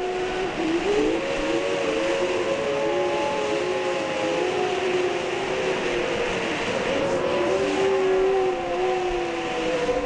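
Ground fountain fireworks (flowerpots) spraying sparks with a steady, loud hiss, overlaid by several wavering, siren-like whistling tones that glide up and down.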